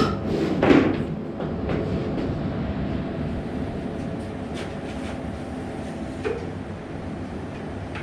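Steady mechanical drone of workshop machinery with a low hum. A brief rushing burst comes just under a second in, and a few light knocks follow.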